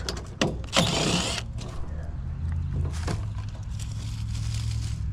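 Sheet-metal panel on a packaged gas unit being worked loose and pulled off: a short scrape about a second in and a click near three seconds. A steady low motor hum runs underneath.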